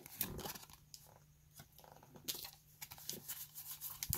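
Trading cards being sorted and shuffled by hand: soft, scattered flicks and rustles of card stock sliding against card stock, with a sharper click near the end.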